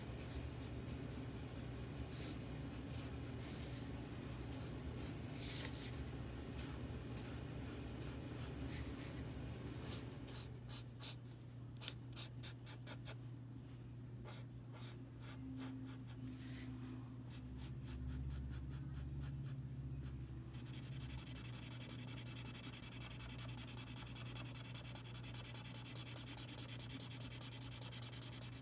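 Felt-tip marker drawing on paper in many short separate strokes. About twenty seconds in, the strokes turn into fast, continuous back-and-forth colouring that fills in a dark area. A low steady hum runs underneath.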